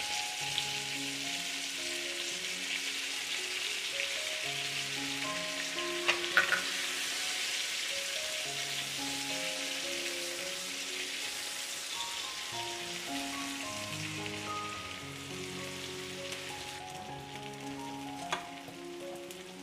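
Food frying and sizzling with a steady hiss that eases slightly near the end. Background music of slow held notes plays underneath, and there are a few sharp knocks about six seconds in and once more near the end.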